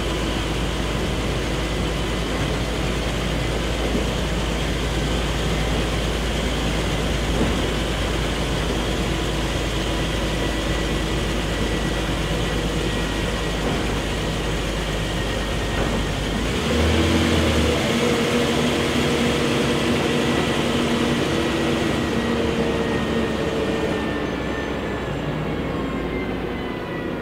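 Scania OSC11 11-litre six-cylinder turbo CNG engine and road noise heard from inside a moving city bus. About two-thirds through, the engine note changes and grows a little louder and clearer. Near the end it eases off, its pitch falling as the bus slows.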